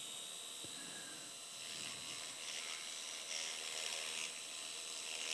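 Arthroscopic 5.5 mm bone-cutter shaver running in the joint with suction attached: a faint, steady high whine over a hiss.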